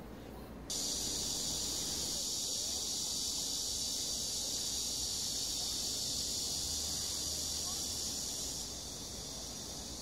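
Cicadas buzzing: a steady, high-pitched drone that starts abruptly about a second in and drops in level near the end.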